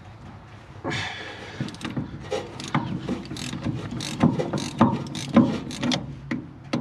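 Hand tools working on a swather's auger driveline: irregular metallic clicks, clanks and knocks, starting about a second in.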